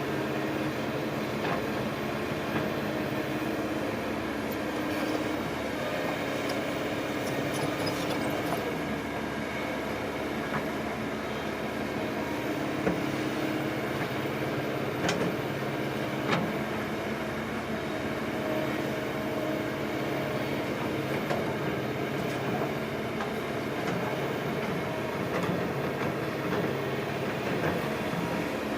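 Heavy diesel earth-moving machinery running steadily, with a few sharp metallic clanks.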